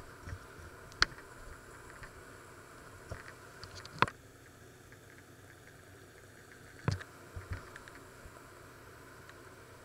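Quiet steady room hum with three sharp knocks, about a second in, about four seconds in and near seven seconds. The last knock is followed by a couple of softer thumps.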